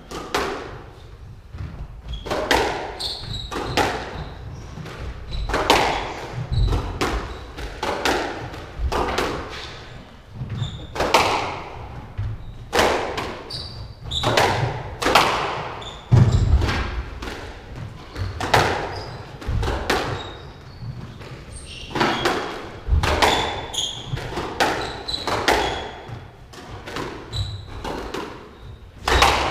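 A squash rally: the ball is struck by rackets and thuds off the court walls and floor in a quick, irregular run of sharp hits, one or two a second, echoing in the enclosed court.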